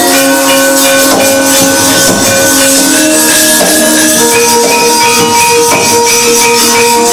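Javanese gamelan playing wayang kulit accompaniment: ringing bronze metallophone notes that change every second or so. Over them runs a dense, quick clatter of metal plates, the dalang's kecrek.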